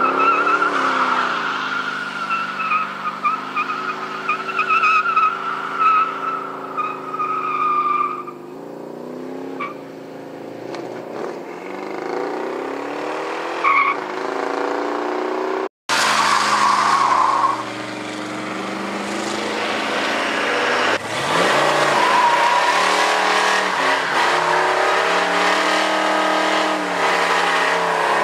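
Muscle cars doing burnouts: an engine revving hard over a long, steady squeal of spinning rear tyres from a second-generation Chevrolet Camaro, then, after a sudden cut about halfway, a 1969 Dodge Charger's engine revving up and down in pitch with more tyre squeal.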